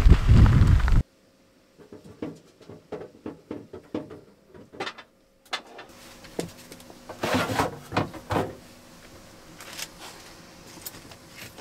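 Loud wind noise on the microphone for about the first second, ending abruptly. Then shopping is unpacked onto a kitchen counter: plastic bags rustle and produce is handled and set down, giving irregular small clicks and knocks, with louder rustling a little past halfway.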